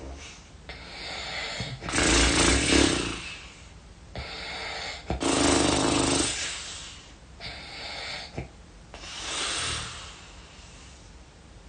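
A person snoring heavily in slow breath cycles. Each loud, rough snore follows a softer breath, about every three and a half seconds, and the third cycle near the end is weaker.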